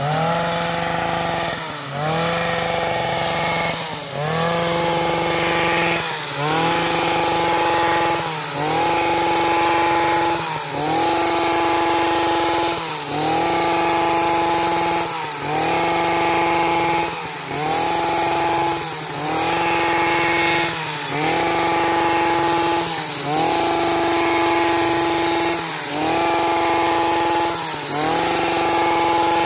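Handheld tea plucking machine's small two-stroke engine, revved up and let back down about every two seconds. Each rev climbs quickly in pitch and holds for a second or so before falling off.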